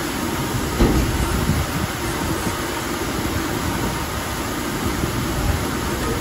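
Bulgur-grinding mill machinery running: a steady low mechanical noise, with a brief knock about a second in.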